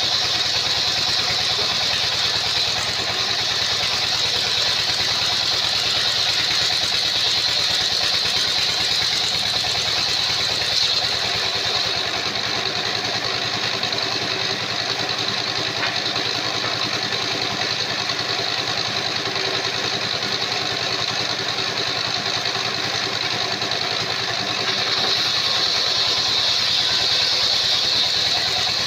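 Engine-driven circular sawmill running steadily, with a continuous high whine from the spinning tipped disc blade that grows stronger again about 25 seconds in.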